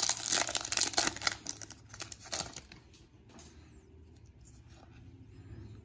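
Foil Pokémon booster pack wrapper crinkling and tearing as it is pulled open, with a dense crackle for about the first two and a half seconds. After that, only faint rustling of the cards being handled.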